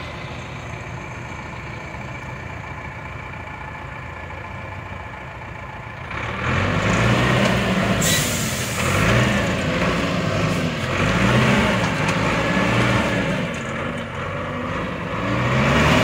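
Heavy diesel engine running at a steady low idle, then from about six seconds in revving up and down again and again, each rev rising and falling in pitch as it works under load. A short sharp hiss of air comes about two seconds into the revving.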